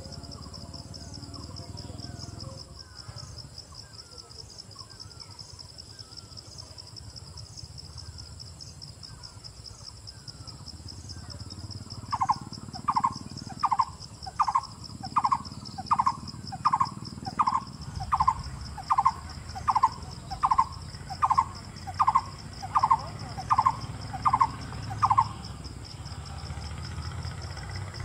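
Blue-throated barbet calling: a loud series of about eighteen evenly spaced notes, a little more than one a second, starting about halfway through and stopping a few seconds before the end. A steady, fast-pulsing insect trill runs high above it throughout.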